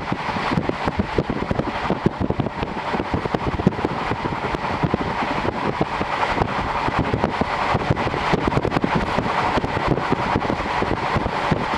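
Series 711 electric train running at speed, heard inside the car through an open window: a steady rumble of wheels on rail and rushing air, with many small knocks and rattles.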